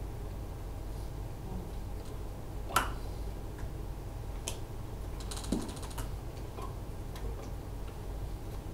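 Room tone: a steady low hum with a few sharp clicks, the loudest about three seconds in, and a brief fast rattle a little after five seconds.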